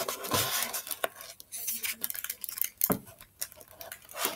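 Handling noise from a hardcover picture book held up close to the microphone: a brief paper rustle at the start, then scattered sharp clicks and taps as fingers shift their grip on the cover and pages.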